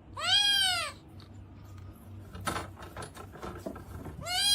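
A cat meowing twice: a long meow that rises and falls in pitch near the start, and a shorter rising meow at the very end, with faint knocks and rustling between.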